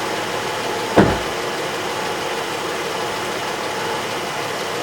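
Ford Edge engine idling steadily, with a single sharp knock about a second in.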